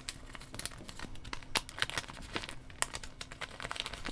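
Paper placeholder slips being slid into and pulled from the clear plastic pocket pages of a photocard binder: irregular crinkling and rustling of plastic sleeves and paper, with small sharp clicks.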